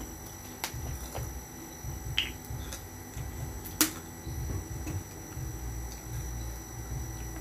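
A few sharp clicks and crackles from a plastic water bottle being handled, the loudest click just under four seconds in, over a low background rumble.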